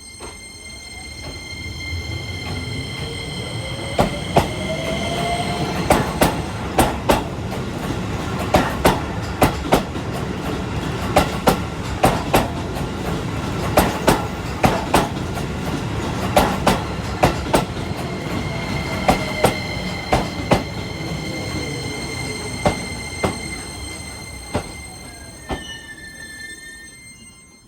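Keisei 3000-series electric train, set 3036, running past without passengers: a steady rumble that builds, holds and fades, with the wheels clacking over rail joints, mostly in close pairs. A whine rises in pitch early on and falls again near the end.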